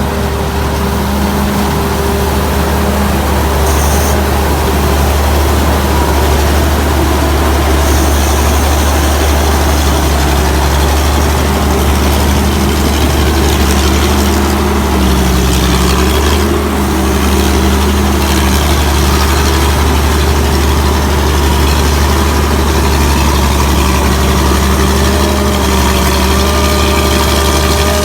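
Combine harvester's Hino J08C six-cylinder diesel engine running steadily at constant speed, with a strong low drone.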